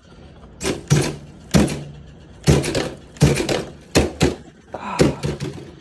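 Redcat 1959 Chevy Impala RC lowrider hopping on its servo-driven suspension, its wheels and chassis knocking and clattering on a wooden tabletop. About ten sharp knocks come irregularly, roughly one to two a second, and a low motor hum trails after several of them.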